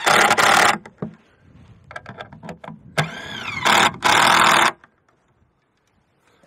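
Cordless power driver driving screws into wood. There are two runs, one at the start and one about three seconds in. Each is a motor whine that rises and falls, ending in a loud harsh burst of about a second as the screw drives home.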